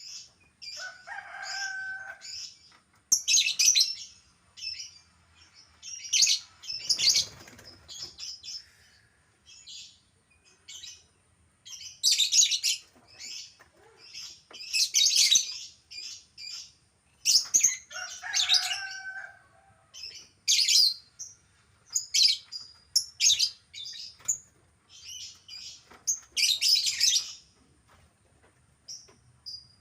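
Lovebirds calling: irregular bursts of shrill, raspy chirping and chattering, some of them in longer rapid runs.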